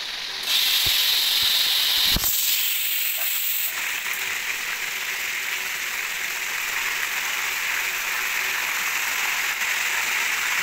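Hot oil sizzling as pieces of boiled beef for chicharon deep-fry in a pan. The sizzle is louder and harsher for the first few seconds, then settles to a steady hiss.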